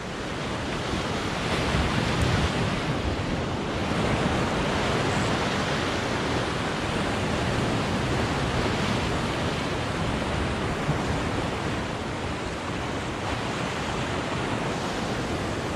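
Ocean surf breaking and washing over a black lava-rock shoreline: a steady rush of whitewater, swelling a little about two and four seconds in.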